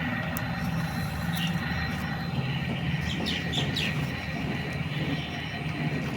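Small electric motors and gearbox of a remote-control toy excavator whirring steadily, with a few short high chirps about three seconds in.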